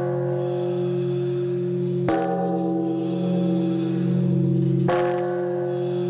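Large temple bell struck from the side with a hanging wooden log striker, twice, about three seconds apart. Each stroke sets off a long ring of several steady tones, and the ring of an earlier stroke is still sounding at the start.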